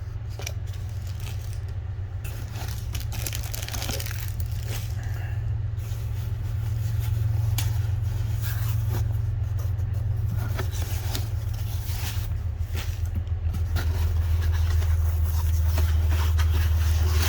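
Bubble wrap and packaging being handled and pulled off, with scattered crackles and scrapes, over a steady low rumble that grows somewhat louder.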